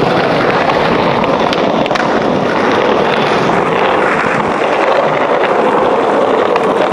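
Skateboard wheels rolling over rough pavement: a loud, steady rolling noise with a few faint clicks from cracks and grit.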